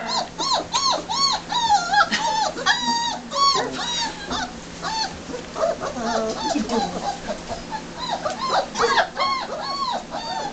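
Several four-week-old German Shepherd puppies whining and yipping, a steady run of short high cries that rise and fall, several a second and overlapping. The pups are begging at the smell of food.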